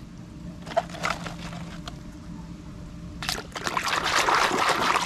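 A hand sloshing and splashing water in a plastic basin of muddy water while rinsing toys: small drips and trickles at first, then louder, busier splashing from about three seconds in.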